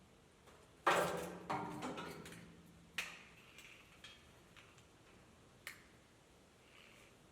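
A few sharp metallic clanks and clicks, the first two loudest and ringing briefly, as tools and wiring are handled against metal.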